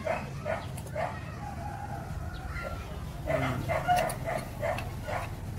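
A dog barking in short, repeated yaps: a few about half a second apart, then a quicker run of them past the middle.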